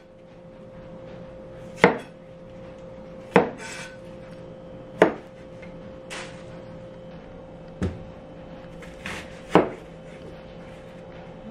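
Chef's knife cutting broccoli and onion on a plastic cutting board: about seven separate sharp knocks of the blade meeting the board, a second or two apart, some softer than others. A faint steady hum runs underneath.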